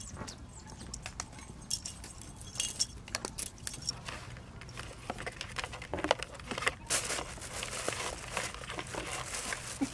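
Cats playing with a wand toy's plastic streamer and a cardboard box: scattered crinkling, rustling and light scratching clicks, busier in the second half.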